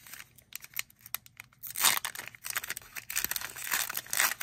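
Foil wrapper of a Panini Illusions football card pack crinkling and tearing as it is pulled open by hand, loudest about two seconds in and again near the end.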